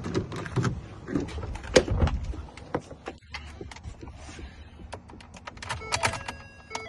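Freshly cut test key worked in a Ford F-350's lock cylinder: a run of metallic clicks, rattles and a few heavier knocks, with short steady tones near the end. The cut turns the door lock but not the ignition.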